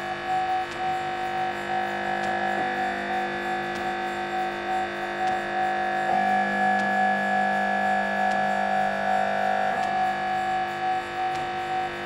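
Layered recordings of MRI scanner sounds played as music: steady humming tones stacked together with a fast pulsing tone among them. The layers switch abruptly about two and a half, six and ten seconds in.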